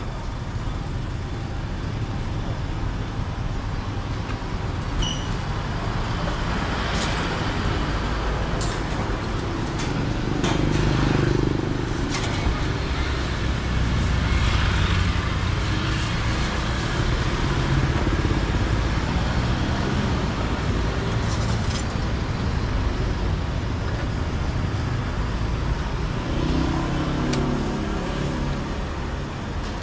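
Street traffic noise: a steady low rumble of passing vehicles that swells and fades as they go by, with an engine passing close near the end. A few light clicks are scattered through it.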